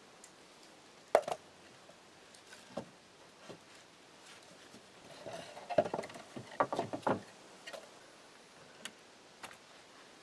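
Small plywood boxes being knocked and scraped into place under a wooden bench: one sharp knock about a second in, then a cluster of wooden knocks and scrapes around the middle.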